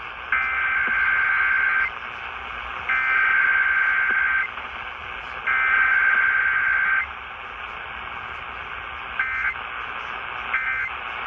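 Emergency Alert System SAME data tones heard over AM radio. First come three long raspy bursts of the header code, each about a second and a half. Then come two short bursts of the end-of-message code, with steady radio hiss between them.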